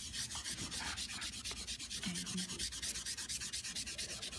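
A small piece of charcoal rubbed rapidly back and forth over a sheet of paper: a dry, scratchy scraping made of quick, even strokes.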